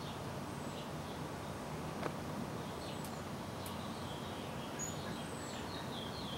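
Steady outdoor background noise with faint, scattered chirps of small birds, thickening near the end, and a single sharp click about two seconds in.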